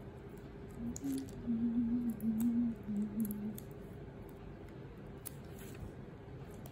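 A person humming a few notes of a tune for a couple of seconds, over small wet clicks and squishes of raw shrimp shells being pulled off by hand.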